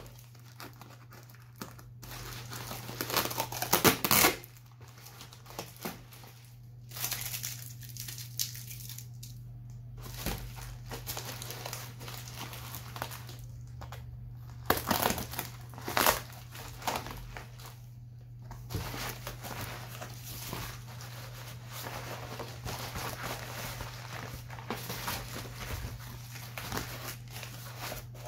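Packing tape being cut with a knife and green plastic bubble wrap being torn open and unwrapped: irregular crinkling, tearing and sharp cracks of plastic, over a steady low hum.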